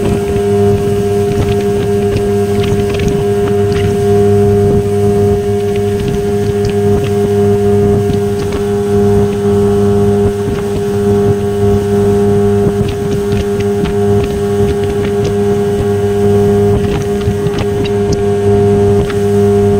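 Suzuki 15 hp long-shaft outboard motor running steadily at speed, pushing a small boat along, with water rushing and spraying off the hull. The engine holds one even pitch throughout, in a run the owner judges very good and normal.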